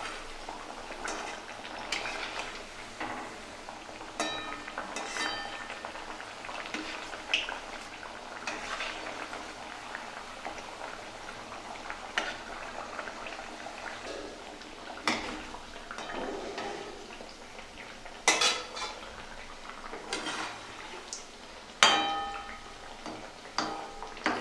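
Thekua deep-frying in hot oil in a metal kadai, a steady sizzle. A metal spatula and slotted spoon scrape and clink against the pan now and then, with a few louder ringing clinks in the second half.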